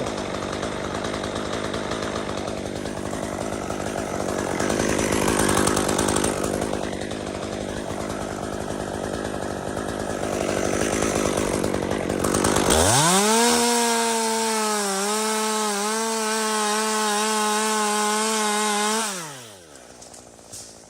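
Chainsaw cutting through wood under load for about twelve seconds, then running at high revs with a clear, steady whine for about six seconds before dropping back to a low idle.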